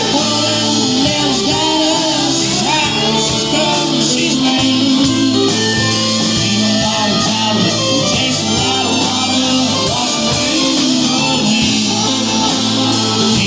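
Live band playing an instrumental passage of a country song, guitar prominent, with a steady beat and a bending melodic lead line.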